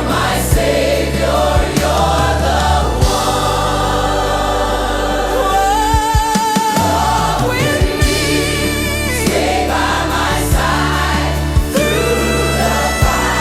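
Gospel worship music: a choir and lead vocal over a steady bass and beat, with one long held note sung with vibrato near the middle.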